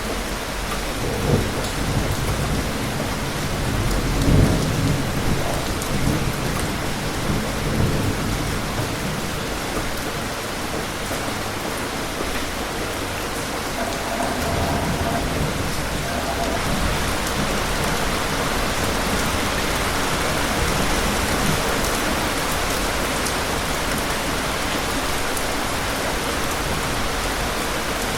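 Steady rain falling, with a roll of distant thunder low underneath through the first third, loudest about four seconds in. After that the rain goes on alone.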